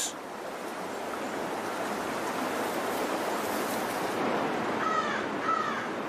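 Steady rushing of creek water, with a bird calling twice in short harsh calls about five seconds in.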